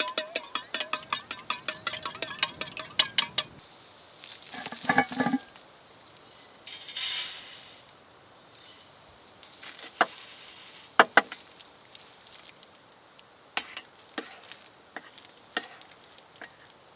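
A utensil beating rapidly against a bowl, a fast run of ringing clinks lasting about three and a half seconds. A short rustle and a brief hiss follow, then a few scattered clinks of utensils and dishes.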